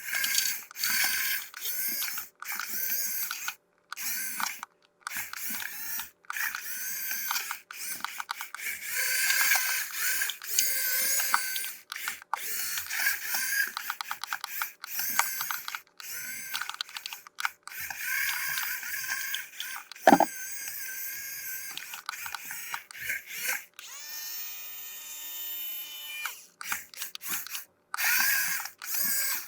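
Unboxing handling noise: plastic packaging and toy parts rustling, crinkling and clicking in short bursts cut apart by brief silences. A sharp knock comes about two-thirds of the way in, and a steady whirring tone lasts about three seconds near the end.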